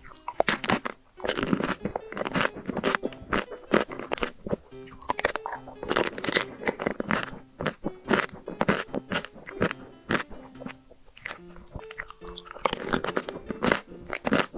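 Close-miked biting and chewing of chocolate: many sharp, crisp crunches in quick succession, with background music underneath.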